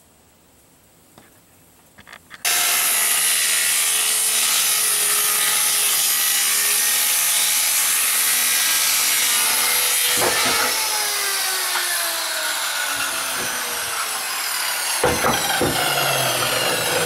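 Corded handheld circular saw cutting through a plywood sheet. It starts about two seconds in and cuts steadily, then is let off about ten seconds in, its whine falling as the blade winds down; near the end it is run up again with a rising whine.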